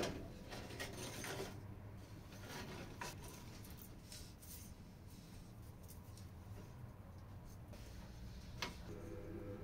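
Faint handling sounds of a small wooden workpiece on a workbench: a few light clicks and knocks, with one sharper click near the end, over a low steady hum.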